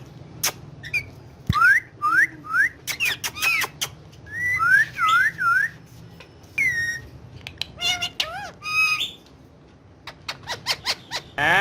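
Ringneck parrot chirping and whistling: a run of short rising whistles, looping warbled notes and squeaky calls, broken up by sharp clicks and short pauses.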